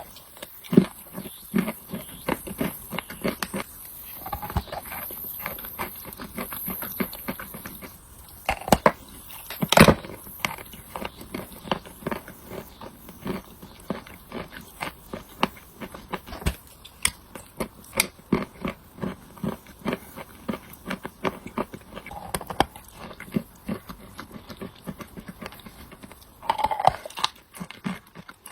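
A person chewing wet chalk with clay paste close to the microphone: dense, irregular crunching and squishing bites, with a few louder crunches about nine to ten seconds in and again near the end.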